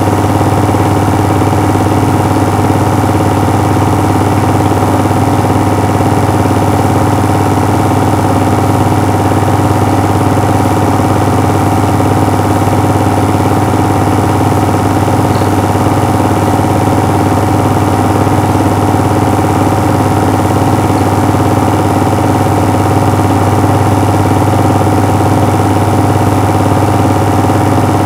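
Steady mechanical running noise with a strong low hum and a fine rapid rattle, unchanging throughout: a film projector running as home-movie film is played.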